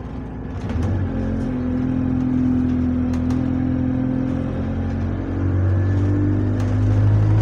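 Single-deck bus engine pulling under acceleration, heard from inside the passenger saloon. The engine gets louder about a second in and again about five seconds in.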